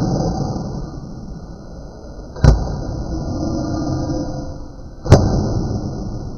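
Harsh, filtered, glitch-processed noise with a sharp crack twice, about two and a half seconds apart.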